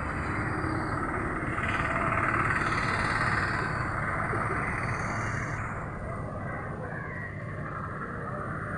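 Outdoor street ambience: steady traffic noise with indistinct voices in the background, swelling a little about two seconds in.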